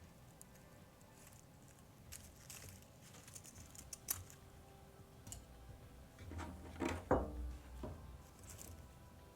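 Dried flowers and stems being handled for a wreath: scattered light crackles, rustles and clicks, with a louder cluster of handling noise about two-thirds of the way through.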